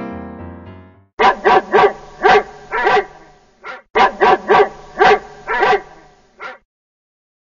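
A dog barking in two runs of several short barks each, the second run matching the first. A piano chord fades out in the first second.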